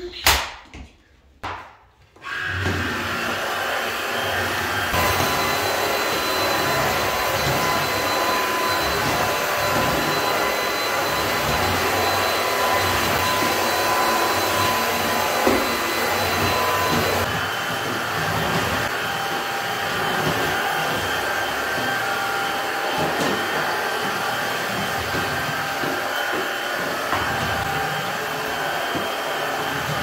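Cordless stick vacuum: sharp clicks as the handheld unit is fitted onto the wand, then the motor starts about two seconds in and runs steadily with a whine while it cleans a tiled floor. Its tone shifts about five seconds in and again around seventeen seconds.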